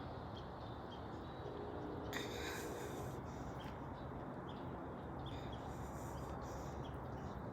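Wind buffeting the microphone: a steady low rumble with a brief gust of hiss about two seconds in.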